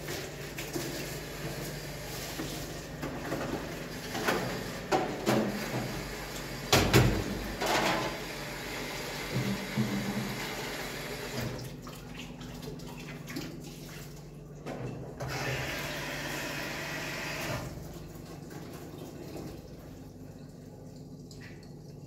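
Water running, with a few knocks and clatters about four to eight seconds in; the water sound falls away near the end.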